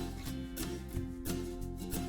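Background music with a steady beat and held notes, light plucked-guitar-like tones.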